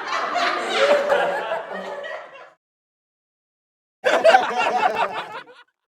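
Studio audience laughing, dying away about two and a half seconds in; after a gap of silence a second, shorter burst of audience laughter starts abruptly about four seconds in and fades out.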